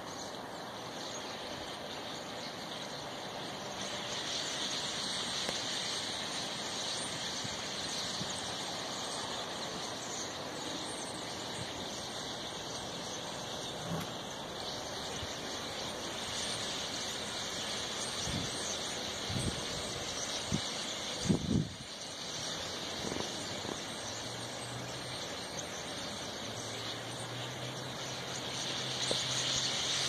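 A huge flock of songbirds on power lines and in the air, calling all at once in a continuous high-pitched massed chatter that swells near the end. A few low thumps about two-thirds of the way in.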